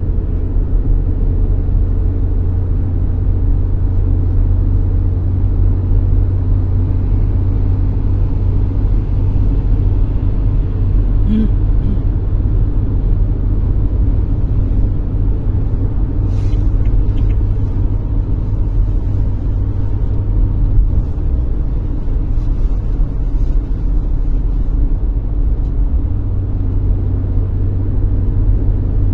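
Steady low rumble of engine and tyre noise heard from inside a car's cabin while driving along a wet multi-lane highway, with a light hiss from the tyres on the wet road. Two brief clicks sound partway through.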